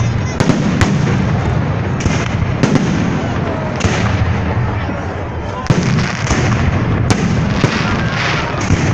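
Festive fireworks salute: a string of sharp bangs and crackles over a continuous rumble, with voices among the crowd.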